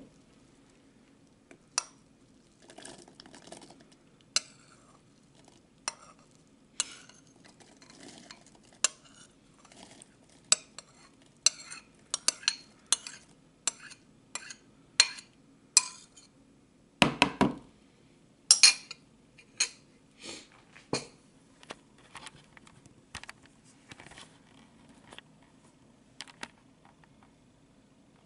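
A spoon clinking and scraping against a bowl as cooked peas are scooped out into a plastic blender cup: a long string of short, sharp taps, one or two a second, with a few louder knocks past the middle.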